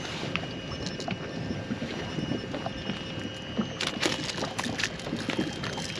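Water lapping against the hull of a small inflatable boat, with light wind, and a cluster of sharp clicks and taps about four seconds in.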